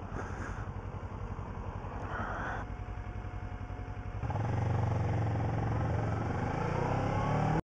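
Kawasaki motorcycle engine idling with a low, even pulse, then running louder from about four seconds in as the bike rides on, its pitch rising slightly near the end before the sound cuts off suddenly.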